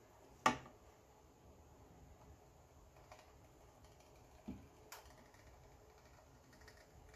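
A few light clicks and taps as a hot wood-burning tool is drawn across poly burlap mesh on a cutting mat, with one sharper click about half a second in; otherwise a quiet room.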